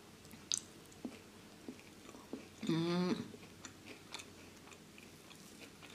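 A person chewing a mouthful of food, with faint wet mouth clicks, and a short hummed "mmm" about halfway through, the loudest sound.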